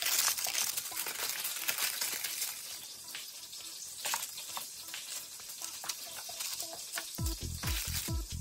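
Chicken wings frying in oil, a steady sizzling hiss with a few small clicks. Background music with a beat comes back in about seven seconds in.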